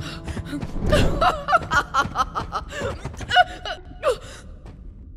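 A cartoon character's breathless gasps and short cries while running, many in quick succession and falling off near the end.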